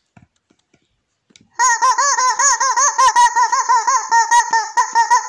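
Yellow rubber chicken toy squeezed over and over, giving a loud squawk that starts about a second and a half in and keeps going, its pitch wavering up and down several times a second.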